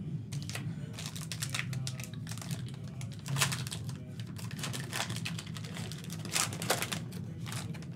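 Trading-card pack wrapper being torn open and its cards handled: a run of short, irregular crackles and clicks.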